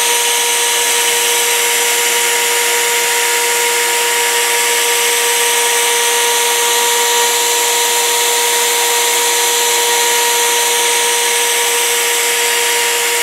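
CNC router running steadily with its bit cutting a glued-up wooden wheel pattern: a constant motor whine over the hiss of the cut.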